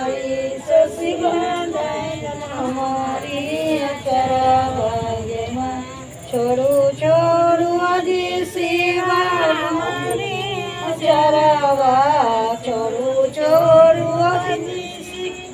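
Women singing a traditional devotional folk song unaccompanied, the melody carried in long, wavering held notes.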